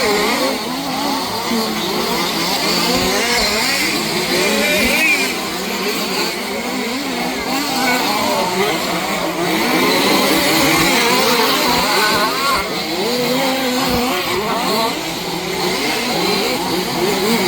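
Several 1/5-scale petrol RC cars' two-stroke engines racing together, their overlapping notes rising and falling as they rev up and back off.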